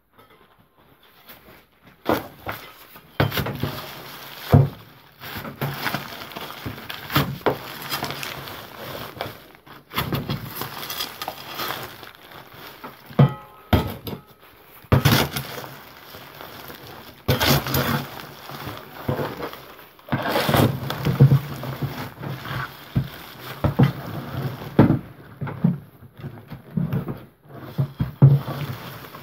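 A spade digging and stirring through plastic bags and wrappers in a plastic wheelie bin: irregular crackling rustle with sharp knocks, in bursts with short pauses.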